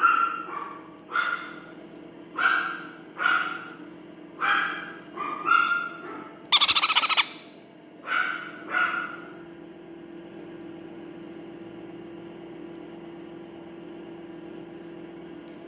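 Parrot chick giving short, repeated begging squawks while being hand-fed, about nine calls over the first nine seconds, with one much louder, harsh burst about seven seconds in. After that only a steady low hum.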